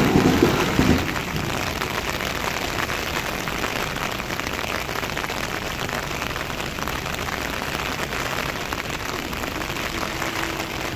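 Heavy rain hissing steadily on the road and surroundings. In the first second the tail of a Class 444 electric train passes with a loud low rumble that cuts away, and a faint steady hum comes in near the end.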